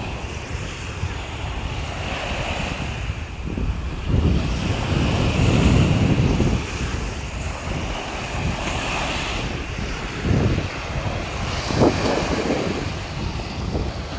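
Small sea waves breaking and washing up a sandy shore, the surf swelling and fading several times. Wind buffets the microphone in gusts.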